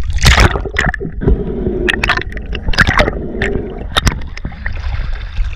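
Sea water splashing and sloshing as a swimmer's arm strokes at the surface, with the camera dipping under the water and back out. There are irregular sharp splashes about every second, with muffled underwater gurgling between them.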